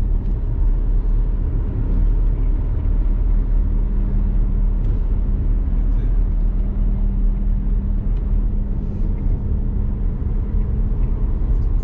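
Steady low rumble of a lorry's diesel engine and tyres, heard from inside the cab while driving, with a faint steady hum that fades near the end.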